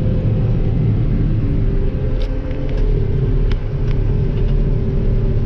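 Combine harvester running steadily with a low rumble, heard from the operator's seat while harvesting soybeans; a few faint clicks a couple of seconds in.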